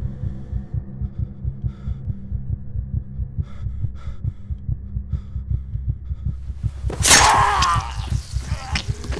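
Low throbbing drone with a fast, steady, heartbeat-like pulse, about four beats a second, as film sound design. About seven seconds in, a loud sudden burst of sound with wavering pitch cuts in and lasts over a second.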